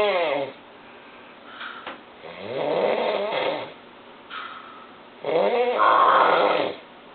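A person snoring loudly: three snores about every three seconds, the first tailing off just after the start, with softer breaths between them.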